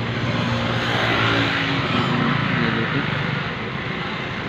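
Steady running noise of an engine or machine, with faint voices in the background.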